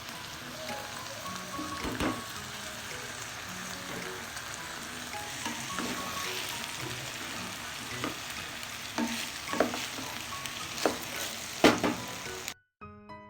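Food sizzling steadily in hot oil in a pan while it is stirred, with a spatula knocking against the pan several times, loudest near the end. The sizzle cuts off abruptly just before the end, leaving only background music.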